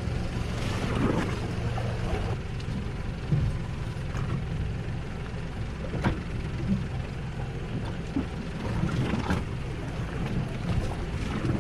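Boat's engine running steadily at low revs, with a few short knocks on deck.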